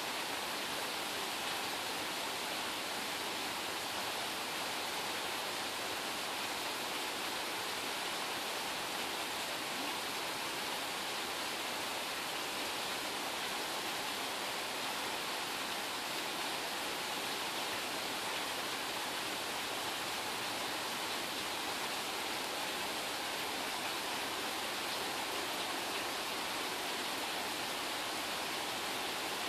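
Steady rain shower falling, an even hiss that stays the same throughout.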